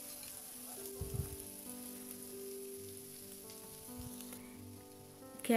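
Chopped onions frying in oil in a frying pan, a faint steady sizzle, with a brief low thump about a second in.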